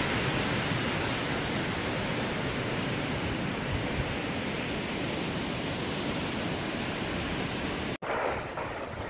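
Storm wind blowing steadily through a stand of spruce and bare trees, an even rushing noise with no separate gusts. About eight seconds in it cuts off abruptly and a weaker, more uneven wind follows.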